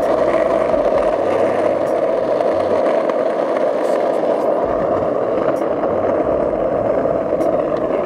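Skateboard wheels rolling over rough asphalt: a loud, steady rolling roar with no break, with a few faint ticks over it.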